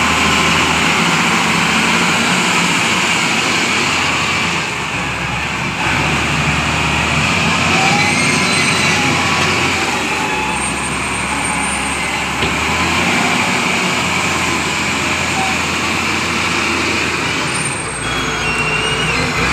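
Heavy vehicle engine running steadily under a dense mechanical din, its low rumble shifting in pitch every few seconds.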